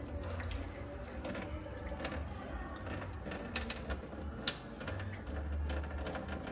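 A thin stream of tap water poured from a jug splashes and trickles steadily onto a wet plate collodion glass plate lying in a plastic tray. This is the water rinse of the just-developed plate, before it goes into the fixer.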